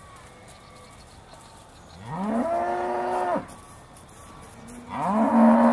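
Aussie Red dairy cows mooing: one long moo about two seconds in that rises at its start and then holds steady, and a second, louder moo that begins near the end.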